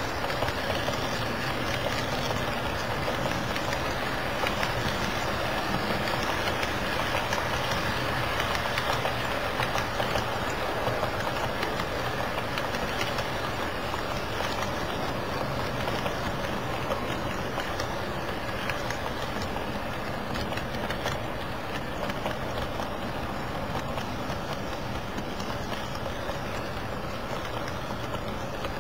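HO-scale model freight cars rolling past on the track: a steady rattling rumble of wheels on rail with fine rapid clicks, easing a little in the last few seconds as the end of the train goes by.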